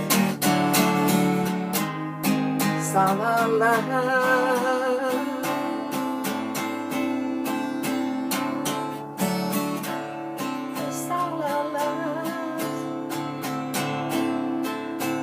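Strummed acoustic guitar accompanying a song, with a voice singing "sa-la-la" twice, about four seconds in and again near the end.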